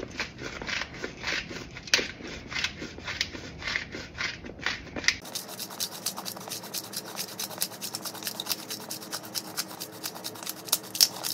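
Black peppercorns being ground in a hand-twisted pepper grinder: a steady run of gritty clicks that come faster from about halfway through.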